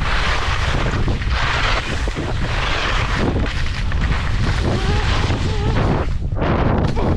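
Wind buffeting the microphone of a skier going downhill, with skis scraping across the snow in a run of hissing swishes, about one every second or so.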